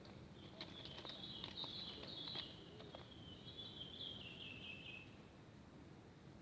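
A bird singing one long warbling phrase that drifts slightly lower in pitch toward its end, over faint background noise with a few scattered clicks.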